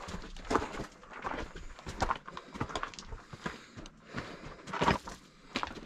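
Footsteps of a hiker walking along a trail: a steady run of short crunching steps, about one and a half a second.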